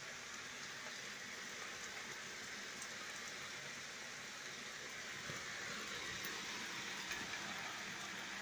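Steady rain, an even hiss that grows a little louder about six seconds in.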